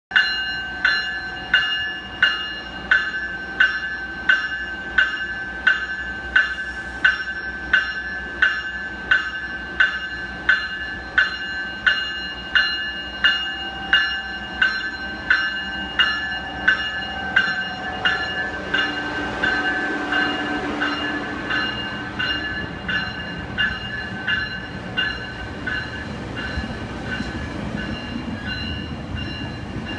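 GO Transit bi-level commuter train's bell ringing steadily, about one and a half strikes a second, signalling departure. About 18 seconds in the train starts to roll and the rumble of its wheels rises under the bell, which grows fainter.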